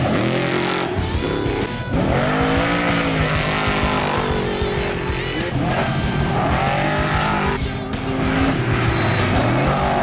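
Off-road desert race vehicles' engines revving hard as they come through one after another, the pitch dropping away and climbing again about four times.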